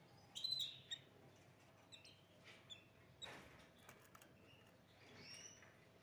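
Caged hybrid canary giving a few short, faint chirps, the loudest about half a second in, with a brief rustle about three seconds in.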